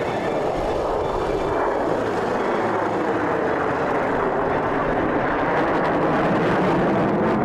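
Jet engines of a four-ship formation of F-16 Fighting Falcons flying overhead: a steady rushing jet roar that swells slightly near the end.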